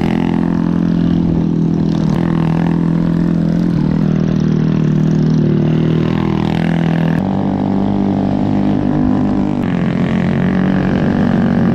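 A motor vehicle's engine running steadily, its note changing a few times.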